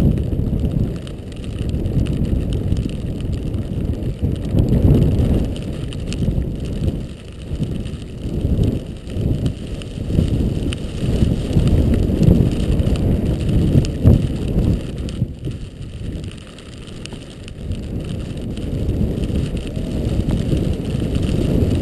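Wind buffeting the microphone of a camera carried by a downhill skier: a low, rough rumble that swells and fades unevenly.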